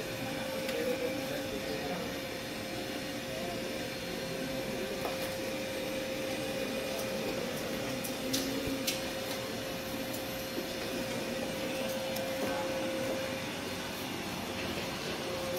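Steady machine hum with a constant mid-pitched tone that drops out near the end, and two faint clicks around the middle.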